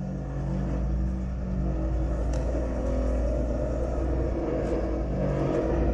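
New Holland wheel loader's diesel engine running under load as the loader manoeuvres over rough ground, with a steady low drone that grows a little louder about halfway through.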